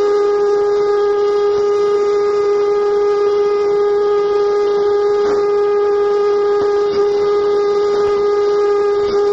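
Amplified noise-music drone from a live noise-band set: a single loud electronic tone held at one pitch, with overtones, over a constant hiss of noise.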